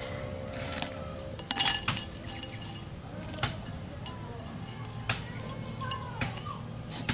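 Light clinks and knocks of kitchenware being handled during preparation. The loudest cluster comes about a second and a half in, then single clinks about once a second, over a steady low background hum.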